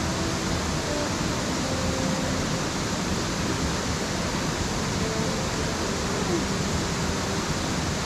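Steady rush of a waterfall: an even, unbroken wash of falling water.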